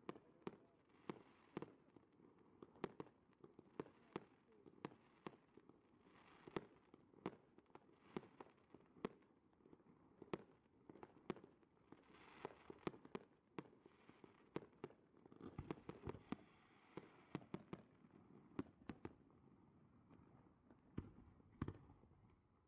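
Fireworks bursting at a distance: an irregular run of sharp bangs and pops, several a second at times.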